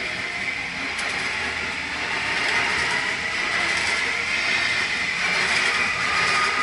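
Red-and-white S-Bahn electric multiple unit passing close by: a steady rush of wheels on rail with a high whine. It is loudest as the last car goes past near the end, then starts to fade.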